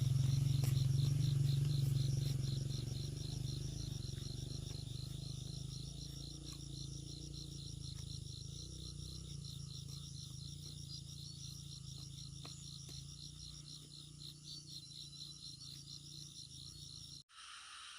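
Insects chirping in rapid, even pulses over a low rumble that is loudest at first and fades over the first few seconds. The sound cuts off abruptly near the end.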